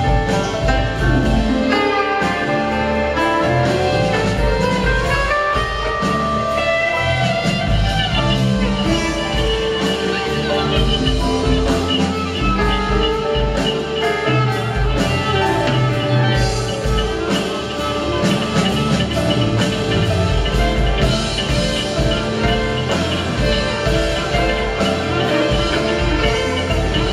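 Live band playing: drum kit keeping a steady beat under keyboards and electric guitar.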